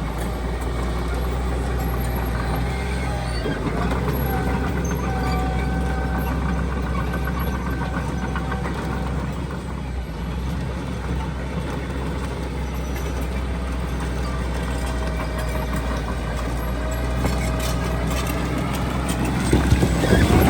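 Heavy diesel construction machinery running steadily under load, with a thin whine that comes and goes and a burst of clanking knocks near the end.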